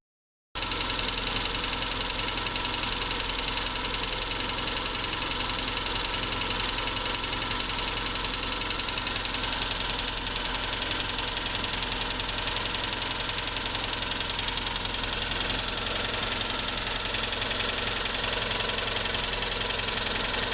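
MeMZ-245 four-cylinder engine running steadily with a distinct knock, which the owner suspects is the fourth cylinder's piston pin knocking in its piston bosses. The sound drops out for a moment at the very start.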